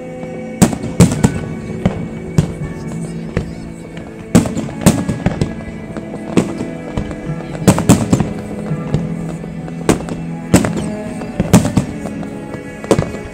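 Aerial firework shells bursting overhead: a loud, irregular series of sharp bangs, roughly one a second, some coming in quick pairs and triplets. Music plays steadily underneath.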